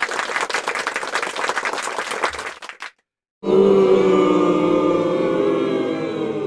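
A large concert crowd cheering and clapping for a few seconds, then cut off. After a brief silence comes music of sustained, choir-like held chords.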